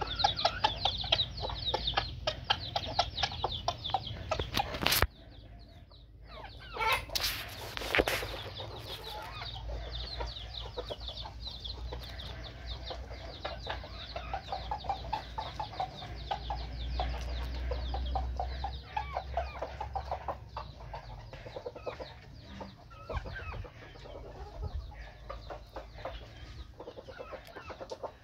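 Chickens clucking: a young junglefowl-type rooster and a hen calling in short repeated clucks as they peck, with a sharper, louder sound about seven to eight seconds in.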